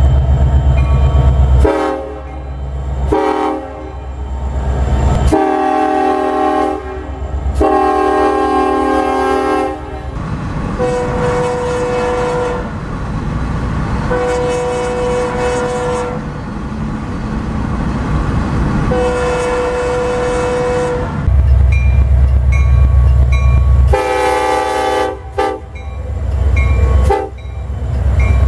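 Diesel locomotive air horns sounding a string of blasts, each a steady chord lasting one to two seconds. In between, there is the loud deep rumble of locomotives passing close by.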